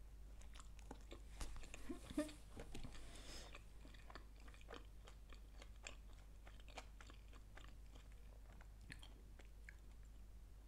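Faint, close-miked chewing of food, with many small wet mouth clicks. It gets louder for a moment about two seconds in.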